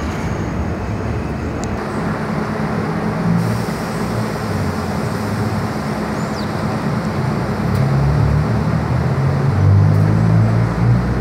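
Steady rumble and hum of an R42 subway train standing at an elevated platform with its doors open, with a low hum that swells louder near the end.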